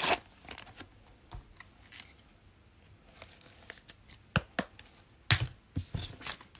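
Glossy Prizm trading cards being flipped and slid one over another in the hand: a scattering of short card clicks and slides, loudest at the start and in a cluster about five seconds in.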